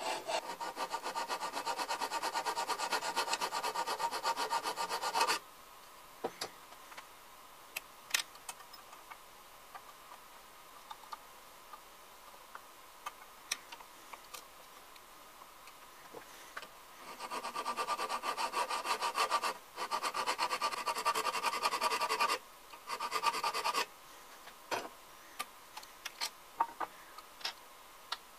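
A hand file rasping back and forth on a steel screwdriver shaft held in a vise, filing flats onto it. It runs in fast steady strokes for about five seconds, stops, and comes back in three short spells about two-thirds of the way through. In between there are light clicks and taps.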